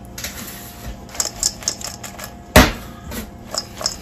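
Crinkle-cut fries being tossed in a stainless steel bowl: scattered clicks and light knocks of fries and bowl, with one loud knock about two and a half seconds in.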